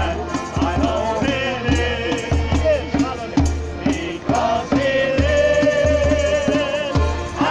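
Worship-song music with a steady beat and a bass line under a melody, with one long held note about five seconds in.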